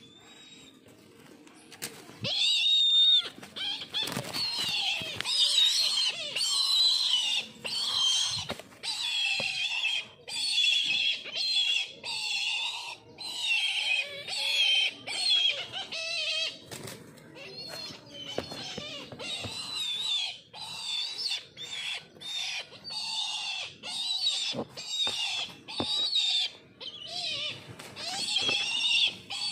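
Brahminy kites giving a rapid series of high, wavering squealing calls, starting about two seconds in, while squabbling over food.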